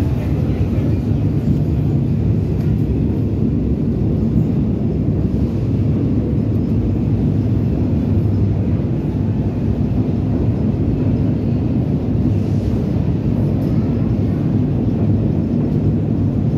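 Steady low rumble of a vintage R1/R9 subway train standing in the station with its equipment running, holding an even level throughout.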